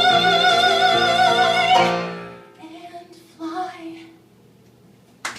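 A singer holding a long final note with vibrato over sustained piano and string accompaniment, cutting off about two seconds in. A few soft instrument notes ring out and fade, and applause breaks out at the very end.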